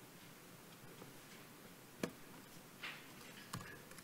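A few isolated sharp clicks from laptop keys and trackpad over quiet room tone.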